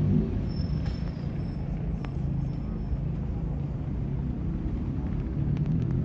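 Steady low vehicle rumble, dipping slightly after the start and building again near the end.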